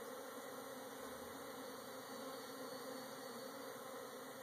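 Honey bees buzzing in a steady, even hum.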